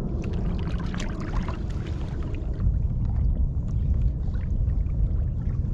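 Small waves lapping and splashing against the hull of a pedal kayak, with scattered short splashes over a steady low rumble of wind on the microphone.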